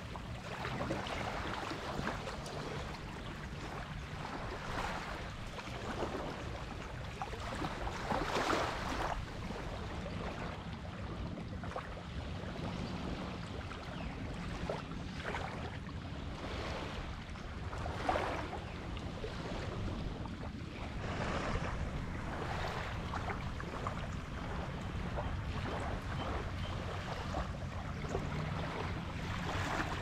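Small waves lapping and washing onto a sandy shore among rocks, in uneven surges every few seconds, with wind on the microphone. A low steady hum runs underneath.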